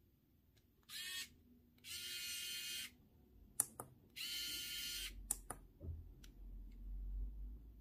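Faint scratchy handling noise in three short bursts as a small screwdriver turns a trimmer potentiometer on a clap-switch circuit, with a few sharp clicks in the second half.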